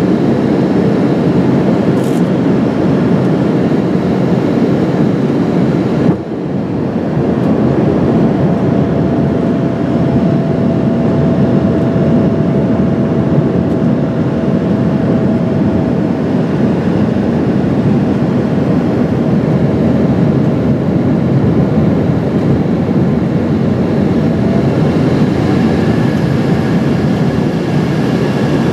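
Steady cabin roar inside an Embraer ERJ 145 on approach: airflow and its rear-mounted Rolls-Royce AE 3007 turbofans heard through the fuselage, with a faint steady whine coming and going. The higher hiss drops suddenly about six seconds in.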